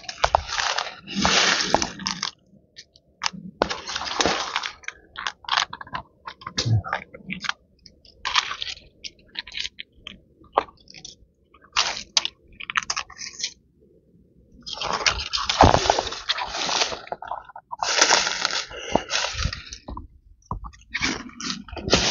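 Irregular crunching and rustling of dry material, in bursts of up to a couple of seconds with short pauses between them; the longest bursts come past the middle.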